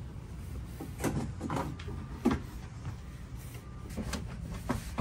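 Shift and throttle cables being pulled down through the hole in a plastic helm console: a few short scrapes and knocks of cable against plastic, over a steady low hum.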